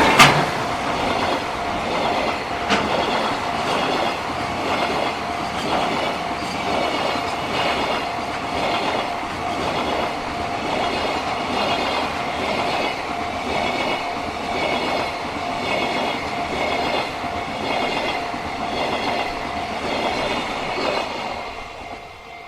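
Long freight train of flatcars rolling past at a level crossing, its wheels clicking over the rail joints in a steady rhythm, while the crossing bell rings on one steady tone. The noise fades near the end as the tail of the train goes by.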